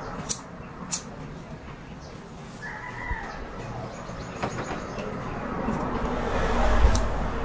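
Scissors snipping hair: a few short, sharp clicks, two of them in the first second. Under them is a low rumble that swells to its loudest near the end.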